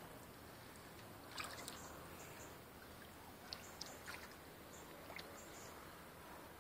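Faint sloshing and trickling of shallow water, with a few small splashes, as a large wels catfish is held in the water by hand for release.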